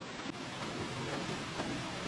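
Steady rushing of a waterfall, a continuous even roar of falling water.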